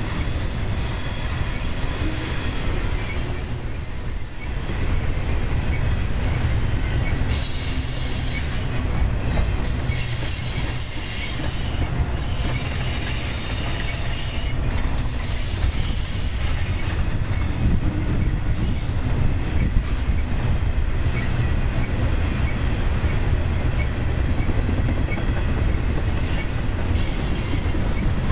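Intermodal freight train's double-stack and trailer cars rolling past close by: a steady heavy rumble of steel wheels on rail, with thin high-pitched wheel squeals coming and going, the clearest about three seconds in. A hopper train crossing the bridge above adds to the rumble.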